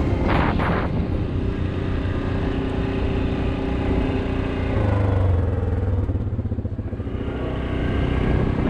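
ATV engine running under way. Its note drops about five seconds in, eases off briefly, then picks up again near the end.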